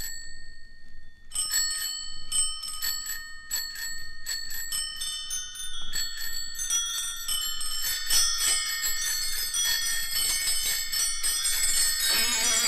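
Music: chiming bell tones struck in quick succession, ringing on and layering into a dense shimmer. Near the end a guitar-led track comes in.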